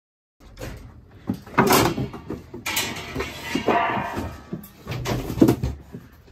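A scuffle: people grabbing, shoving and bumping into furniture, heard as an irregular run of thumps, knocks and rustling that starts about half a second in.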